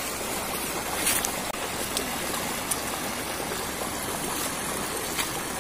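Shallow rocky river running steadily over boulders and through a small cascade, with a few faint clicks.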